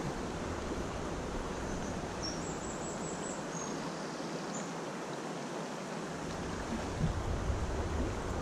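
River current running over a shallow stony bed: a steady rush of flowing water.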